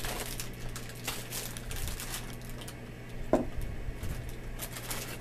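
Plastic sleeve of crackers crinkling as it is pulled from its box and opened, with quick irregular crackles throughout.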